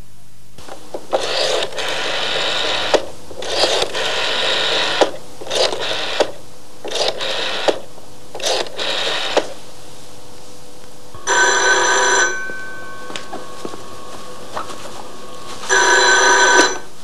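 A rotary telephone dial is pulled round and whirs back with its clicks for several digits in a row. Then a telephone rings twice, each ring about a second long and about four seconds apart.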